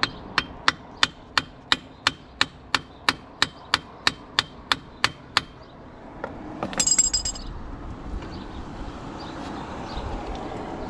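Hammer strikes on metal, a steady run of about sixteen sharp blows at roughly three a second, working a part loose during front CV axle removal on a car. About seven seconds in comes a brief metallic clatter and clink.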